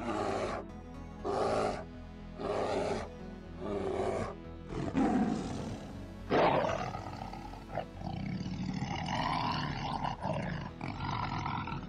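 Lion roaring over background music: a run of deep breathy huffs about every second and a quarter, then a loud roar about six seconds in, followed by drawn-out growling.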